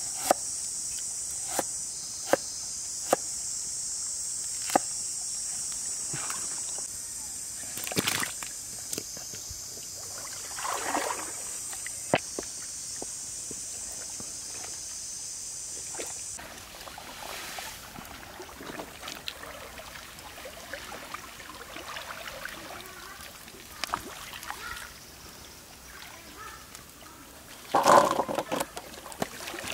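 A cleaver chopping on a wooden chopping board, sharp single knocks about a second apart, over a steady high chorus of insects that stops about halfway through. Then quieter stirring in a wok with a wooden spatula, and near the end a loud clatter as the wok tips slices onto a metal plate.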